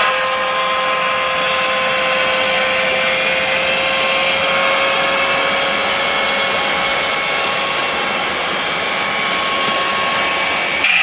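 HO-scale Jouef TGV Ouigo model train running: a steady motor whir with a held whine throughout.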